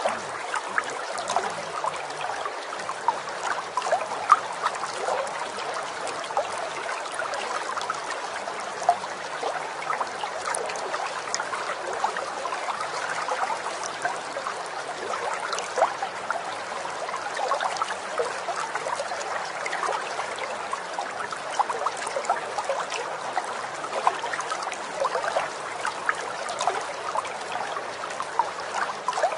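Steady trickling of a small stream, a continuous babble of running water dotted with many small splashes.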